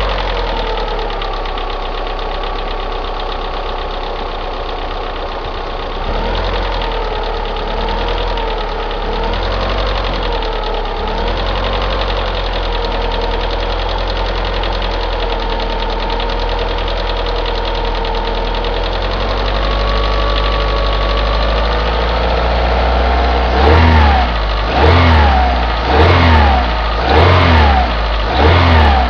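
Opel Astra G's X16XEL 1.6-litre 16-valve four-cylinder petrol engine idling on a cold start, the idle wavering at first, then blipped to low revs about five times, roughly once a second, near the end. It carries the weird sound the owner is chasing: a ticking that mechanics put down to worn valve lifters, and a noise he blames on a worn cambelt tensioner roller.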